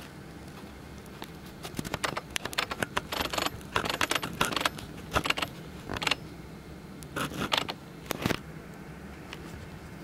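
Irregular clusters of small clicks and rattles, like hard parts being handled close to the microphone. They run for several seconds and stop about a second and a half before the end.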